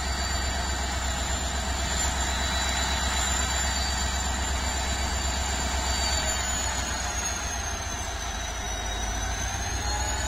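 WDG4D diesel locomotive's 16-cylinder two-stroke EMD 710 engine idling steadily, a deep even drone with a thin high whine above it that sags slightly in pitch past the middle and then climbs back.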